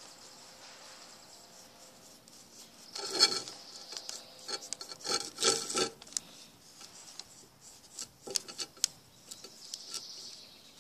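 Rubbing and scraping on the newspaper-covered tabletop close to the camera, from handling a rock and paintbrush while painting: a burst about three seconds in, two more around five and six seconds, then a few light taps.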